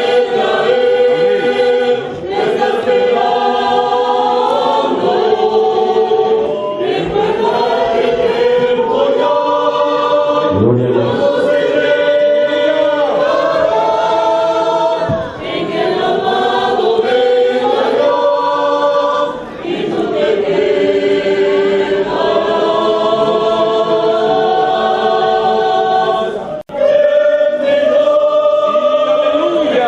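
Church youth choir singing a hymn together in long held phrases, with short breaks between them and one sudden brief drop near the end.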